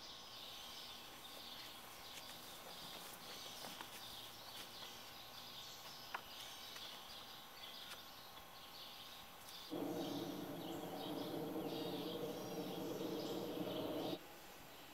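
Faint outdoor ambience with birds chirping. From about ten seconds in, a steady hum of several held tones comes in and then cuts off suddenly near the end.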